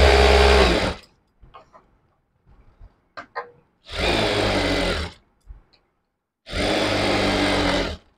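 Jack industrial single-needle sewing machine running in three short bursts of topstitching, each about one to one and a half seconds long, the first the loudest. Between them come faint clicks and rustles as the fabric is shifted under the foot.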